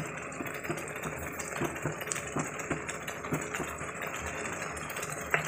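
Tomato-and-spice masala frying in oil in a steel kadai, with a steady sizzle and small scattered pops and spits.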